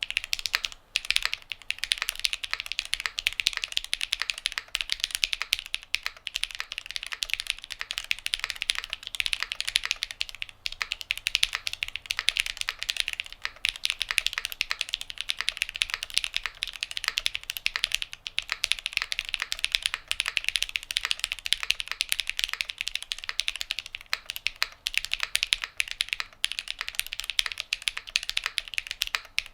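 Continuous fast typing on a Midway60 mechanical keyboard with lubed Zaku switches, a polycarbonate plate and GMK keycaps: a dense, steady stream of keystroke clacks.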